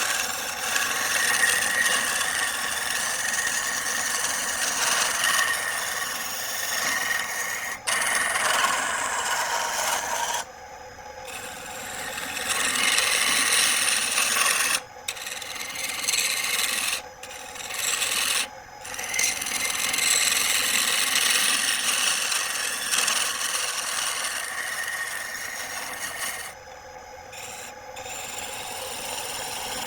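A turning tool cutting into wood spinning on a lathe: a steady scraping hiss that breaks off and starts again abruptly several times.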